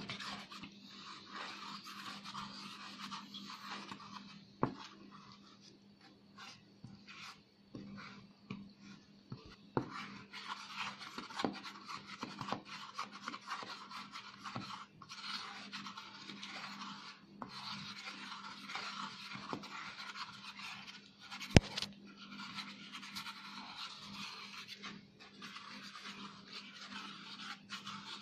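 Metal spatula stirring and scraping wet dental stone paste against the sides of a rubber mixing bowl, a rasping scrape that keeps breaking off and starting again, with small clicks. One sharp knock partway through is the loudest sound, over a faint steady hum.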